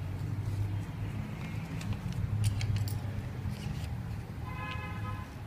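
Folded craft paper rustling as it is handled, with a few light clicks through the middle, over a steady low hum. A brief, faint pitched sound comes near the end.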